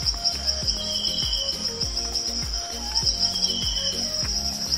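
A steady high insect chorus with a pulsing chirp, over background music with a steady beat of about two low drum hits a second and a simple melody.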